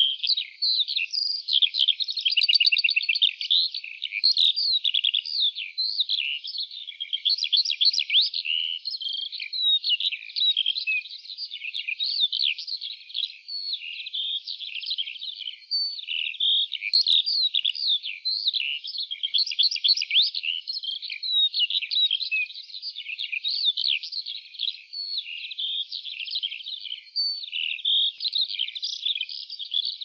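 A lark singing an unbroken, rapid stream of high chirps and trills.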